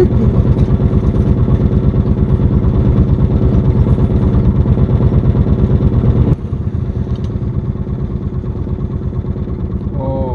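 Small engine running steadily with rapid, even firing pulses. About six seconds in it drops suddenly in loudness and keeps running more quietly.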